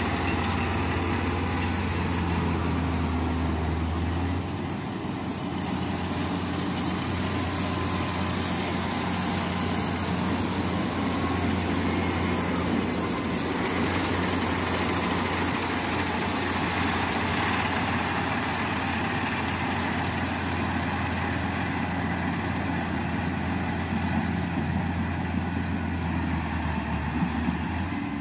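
Combine harvester's diesel engine running steadily with a constant low hum and the rush of the machine's moving parts.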